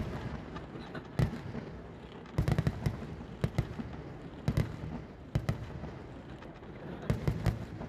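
Festival fireworks going off: irregular clusters of sharp bangs, several coming in quick succession about every second or two, over a continuous crackle.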